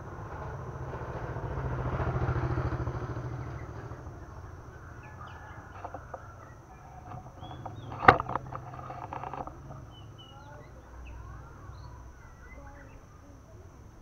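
A motorbike engine passes by, swelling to its loudest a couple of seconds in and then fading. About eight seconds in there is a single sharp knock with a brief rattle, followed by faint chirps from small birds.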